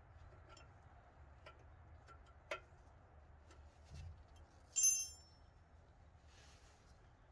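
Small clicks and taps of hand tools and metal parts at a truck's rear brake caliper during brake bleeding, with a sharp click about two and a half seconds in and one short, bright ringing metal clink near five seconds, the loudest sound. A soft rustle follows as the caliper is wiped with a shop towel.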